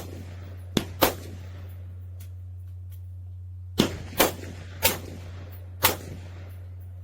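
Rifle shots fired in quick strings: two sharp cracks close together about a second in, then four more between about four and six seconds in, each with a short echoing tail. A steady low hum runs underneath.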